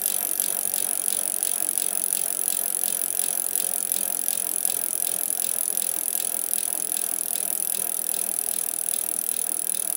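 Skateboard wheels rolling on pavement: a steady rolling noise with a light, fast rattle.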